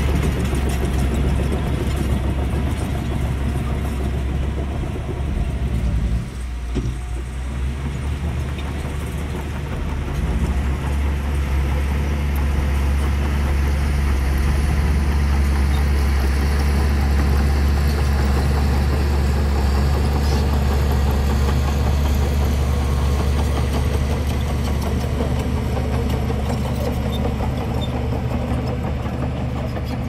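Small crawler bulldozer's diesel engine running steadily under load as it pushes mud, a low drone that dips briefly about six seconds in.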